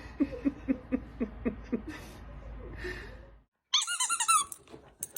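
A run of short squeaky voice sounds, about three a second, each falling in pitch. After a brief break come a few higher, wavering squealing whines.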